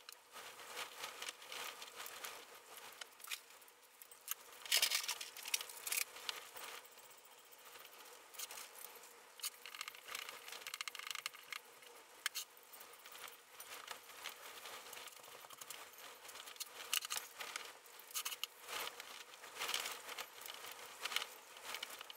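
Hand socket ratchet clicking and steel parts clinking as cap screws are tightened into the steel plates of a homemade shaper's body. A series of quiet, irregular clicks and clinks, the loudest about five seconds in.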